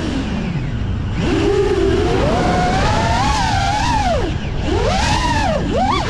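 FPV quadcopter motors whining, the pitch rising and falling quickly with the throttle. It swoops low twice near the end, over a steady rush of wind and prop wash.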